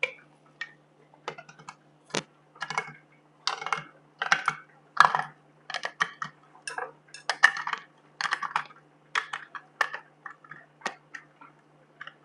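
Handheld manual can opener cranked around the rim of a tin can: irregular clicks and short scraping crunches, one or two a second, as its cutting wheel works through the lid.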